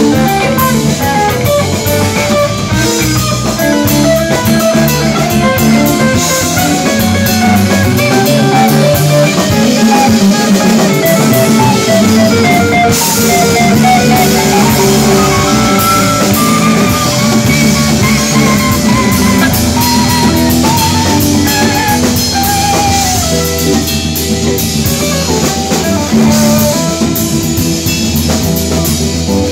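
Band playing instrumental rock music on guitar, bass and drum kit, with a lead guitar line that bends up and down through the middle.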